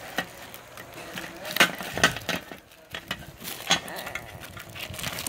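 Plastic makeup case and its clear plastic wrapping being handled: rustling with several sharp clicks and knocks of plastic, the loudest about a second and a half in and again near four seconds in.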